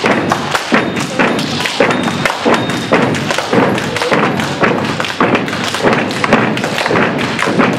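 A step team stomping on a stage floor and striking claps and body slaps in unison, a fast, dense rhythm of sharp thumps and smacks.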